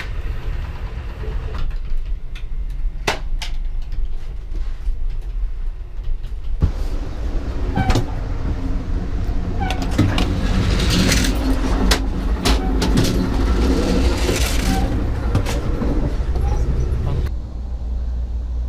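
Passenger train running: a steady low rumble inside the car with scattered sharp clicks and knocks. There is a louder stretch of clatter and hiss in the middle that cuts off abruptly near the end.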